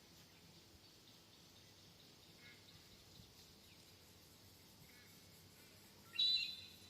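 Wild birds calling over a faint outdoor background: a few soft, brief chirps, then one loud, short, high call about six seconds in.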